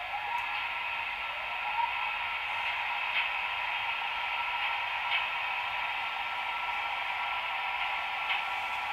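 Model trains running on the layout: a steady mechanical whine with several held tones, two short rising whines in the first couple of seconds, and a few light clicks.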